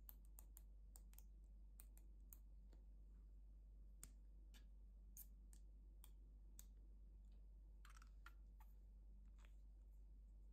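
Faint, irregular small plastic clicks and taps from a glitter-glue tube being squeezed and handled, with a short scrape about eight seconds in.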